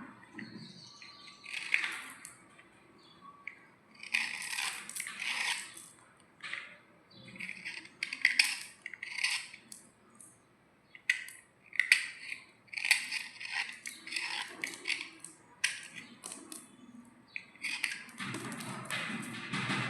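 Slate pencils crunching and scraping in short irregular bursts, a dozen or more through the stretch, with sharp clicks between them and a longer, fuller crunch near the end.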